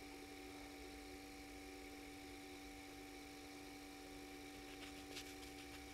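Near silence: a faint steady hum of a few constant tones, with a few faint clicks about five seconds in.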